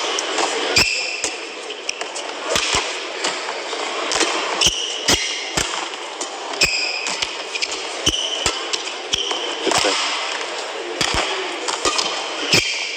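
Badminton rally: rackets striking the shuttlecock in sharp cracks and players' shoes squeaking on the court mat, over the steady noise of an arena crowd.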